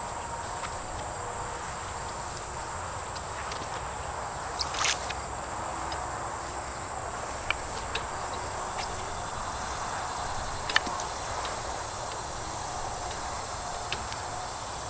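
Insects calling steadily in the grass, with a few short scrapes and knocks as an old black air hose is pulled up out of the turf.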